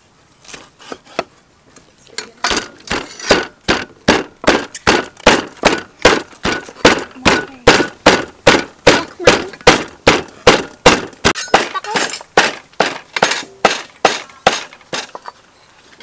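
Steel meat cleaver chopping raw pork on a thick wooden chopping block: a few soft taps at first, then rapid, even chopping strokes, about three a second, that stop just before the end.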